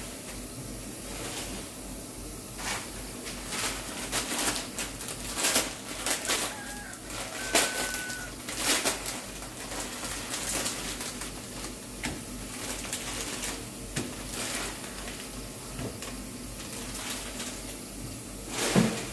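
Saucepan of water boiling hard with a block of instant noodles in it: steady bubbling with irregular pops and crackles, over the hiss of the gas burner.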